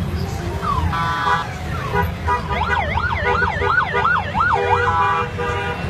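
A siren wailing up and down quickly, about two and a half sweeps a second for a couple of seconds, over the steady low rumble of passing motorcycle engines, with a few short horn tones before and after.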